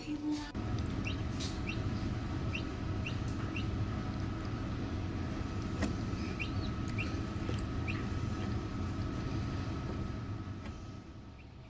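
A steady low machine hum with a faint steady whine, typical of the Nurture Right 360 incubator's fan running. Short, high, downward-sliding chirps repeat irregularly over it, about one or two a second.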